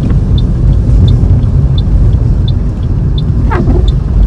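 Steady low rumble of a car's engine and tyres heard from inside the cabin while driving on a snow-covered road. A light, regular high ticking runs over it, about three ticks every two seconds, and a brief falling squeak comes about three and a half seconds in.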